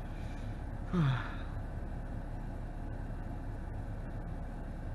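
Steady low hum inside a BMW's cabin while driving. About a second in, a short sigh from the driver drops in pitch.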